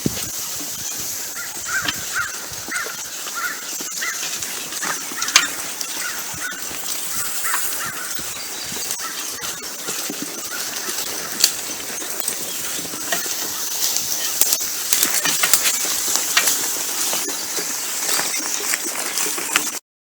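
Outdoor woodland sound of horses browsing on brush, with scattered sharp snaps and crunches of twigs and leaves. A bird calls in a quick series of short notes for several seconds early on, over a steady high hiss, and everything cuts off abruptly near the end.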